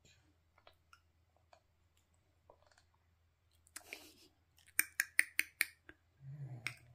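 Feeding spoon scraping and clicking against a baby-food bowl as the next spoonful is scooped: a few faint clicks at first, then a quick run of sharper taps, about five a second, around two-thirds of the way in.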